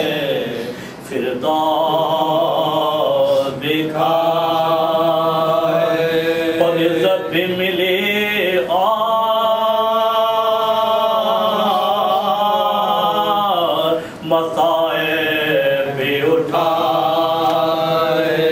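A man reciting an Urdu salaam, a devotional elegy, in a slow melodic chant with long held, gliding notes. There are brief breath pauses about a second in and about fourteen seconds in.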